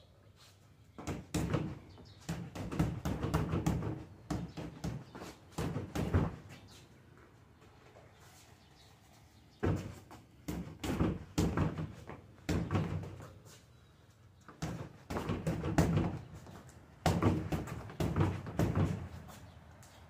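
Boxing gloves punching a free-standing heavy bag: fast flurries of thuds in about five combinations, with short pauses between them.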